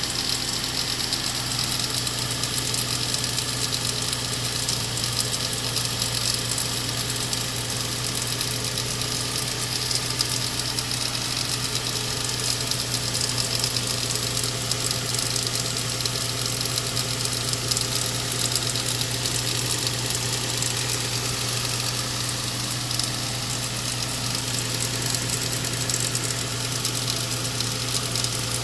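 Engine of a 2008 Nissan Xterra, its 4.0-litre V6, running steadily with a constant hum and hiss, making a weird noise that the owner cannot account for.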